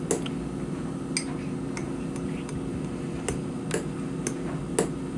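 A spoon stirring thick milkshake in a cup, clinking against the cup's side in irregular light ticks about every half second, over a steady low hum.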